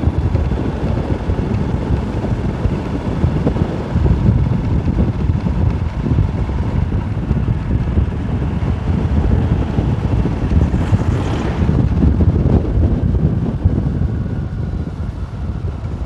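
Wind buffeting the microphone of a moving motorcycle, a steady heavy rumble with road noise underneath, and a brief hiss about eleven seconds in.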